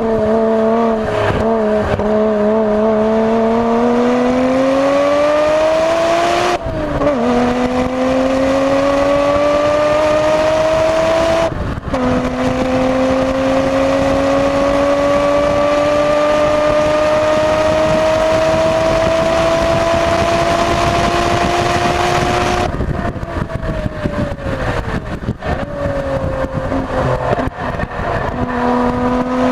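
Nissan Skyline GT-R R33's twin-turbo RB26DETT straight-six, on N1 turbos at 0.7 bar boost, pulling hard at full throttle: the revs climb, drop sharply at two upshifts about six and twelve seconds in, then rise slowly through one long gear. About 23 seconds in the driver lifts off and the revs fall as the car slows.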